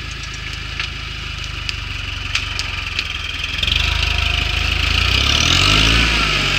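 Toyota Hilux pickup's engine running low and steady, then revving up about three and a half seconds in as the truck climbs over a rock; the pitch rises and eases back down near the end.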